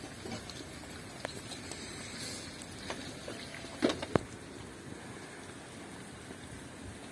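Chicken frying in hot oil: a steady sizzling hiss with scattered small crackles, and two sharper clicks a little before the middle.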